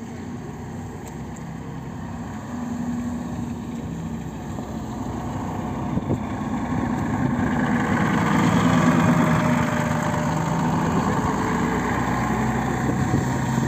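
Mercedes-Benz O405 city bus engine running as the bus drives slowly past at close range. It grows louder as the bus comes near, is loudest about eight or nine seconds in, then eases a little as the bus pulls away.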